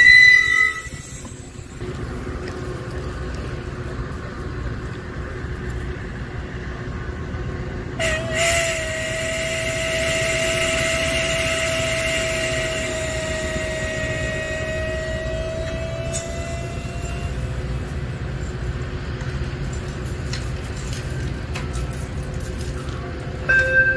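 Metra commuter train standing at the platform with its doors open: a steady low rumble from the idling train. About eight seconds in, a steady high tone joins it and holds for about nine seconds before fading out.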